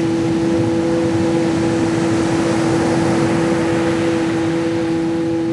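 Ocean waves washing steadily, swelling slightly in the middle, under a sustained humming drone tone held without a break.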